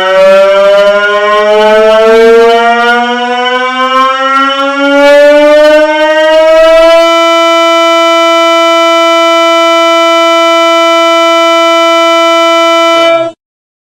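The 'bruh' meme sound effect, sequenced so fast that it fuses into one continuous tone, climbing in pitch for about seven seconds, then holding a steady pitch and cutting off suddenly near the end.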